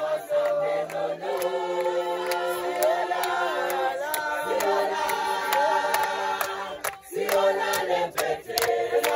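University choir singing in several parts, holding long chords that change every second or two, with a brief break about seven seconds in.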